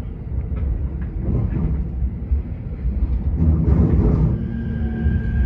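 Keikyu electric train running at reduced speed, heard from inside the train: a steady low rumble of wheels on track with a few light clicks, swelling louder about four seconds in. Near the end a steady high tone sets in.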